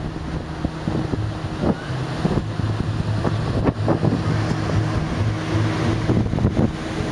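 Wind buffeting the microphone on an open cruise-ship deck, in irregular gusts over a steady low machinery hum from the ship.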